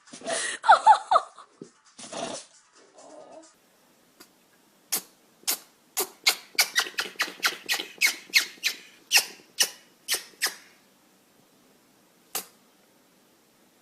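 An animal sneezing over and over: squeaky sounds at the start, then a fast run of about twenty short, sharp sneezes, a few each second, and one last sneeze near the end.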